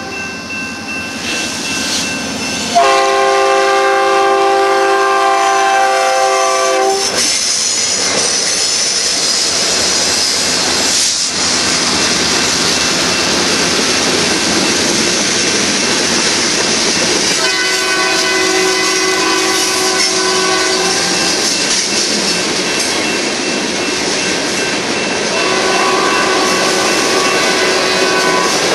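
BNSF freight train's diesel locomotive air horn sounding a chord in several long blasts: faint at first, then a loud one of about four seconds starting a few seconds in, another about midway, and a weaker, shorter one near the end. Beneath it runs the steady noise of the passing locomotives and tank cars' wheels on the rails.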